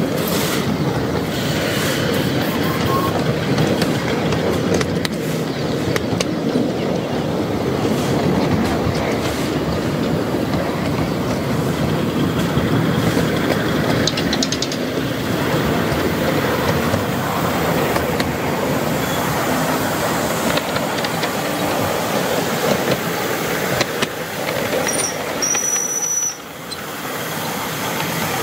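5-inch gauge Simplex 0-6-0 miniature steam locomotive running along the track with a driver aboard: a steady rumble and clatter of its wheels on the rails. A brief high-pitched squeal comes near the end.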